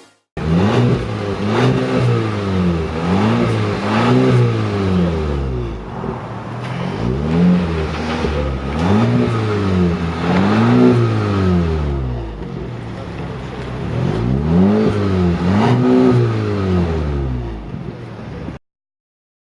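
Audi Q5 turbo petrol engine revved again and again through aftermarket stainless-steel muffler cans, each rev rising and falling within about a second, in three bursts with short pauses between. The sound cuts off abruptly near the end.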